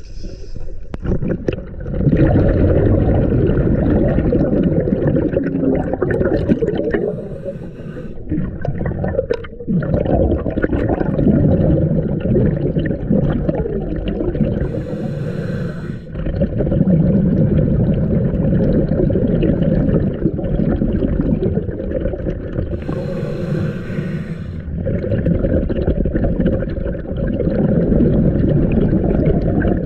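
Scuba diver breathing underwater through a regulator: long rushes of bubbling exhaust, each broken by a short hissing inhale, roughly every seven to eight seconds.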